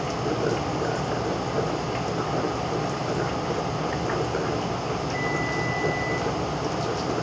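Steady rushing, watery noise of a planted aquarium's running water, even throughout, with a brief thin high tone about five seconds in.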